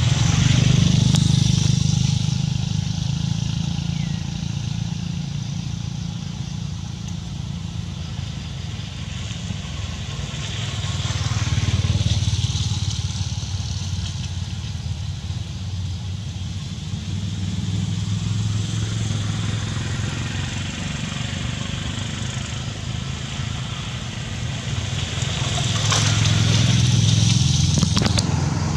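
Motor vehicles, likely motorcycles, passing by. Their low engine rumble swells and fades three times: near the start, in the middle and near the end. A steady high hiss runs underneath.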